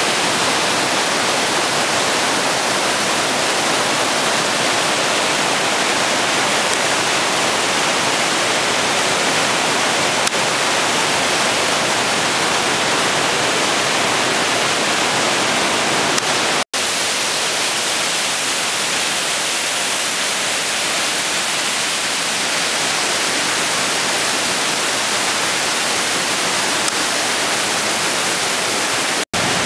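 Mountain stream rushing through a narrow rock gorge: a loud, steady rush of white water. It drops out for an instant about 17 seconds in and again near the end.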